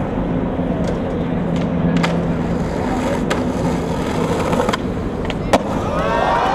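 Skateboard wheels rolling over stone pavement, a steady rolling noise broken by a few light clicks and one sharp clack of the board about five and a half seconds in. Shouts of onlookers start near the end.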